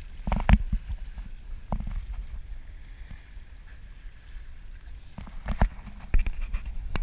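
Low rumble of wind and water rushing past the bow of a moving sailboat, broken by a few short knocks and splashes: one about half a second in, one near two seconds, and a cluster near the end.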